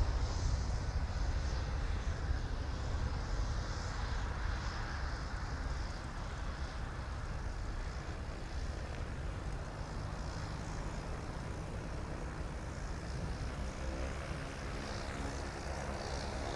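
The MD-90's twin rear-mounted turbofans rumble and slowly fade as the jet climbs away on takeoff. Near the end the steady drone of a small propeller plane's engine comes in.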